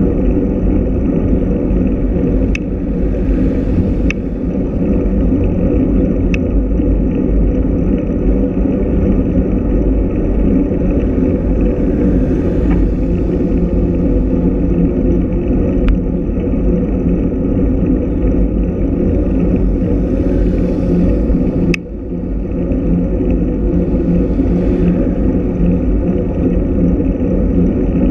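Steady wind and road rumble on a camera mounted on a moving road bicycle, with a few brief faint clicks.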